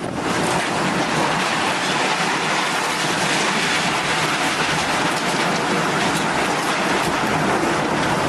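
Steady, dense rushing noise that sets in abruptly at the start and holds level throughout.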